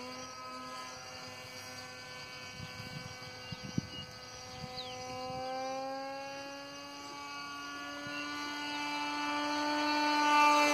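Motor and propeller of a Zagi radio-controlled flying wing in flight, a steady high hum whose pitch steps up at the start, drifts slowly, and grows louder near the end.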